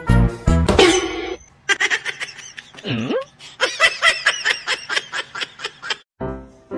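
Laughter: a rapid run of high giggling from about two seconds in, stopping abruptly near the end. It is preceded by a few loud beats of music at the start.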